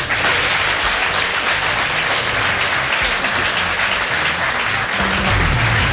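Studio audience applauding steadily. Closing music comes up under the applause near the end.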